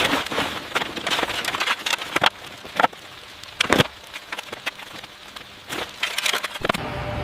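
Irregular sharp cracks and knocks, like wood being broken or worked, in uneven clusters. A steady pitched hum sets in near the end.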